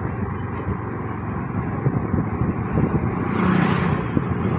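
Wind buffeting the microphone over the engine and road noise of a moving two-wheeler, getting a little louder after about three seconds.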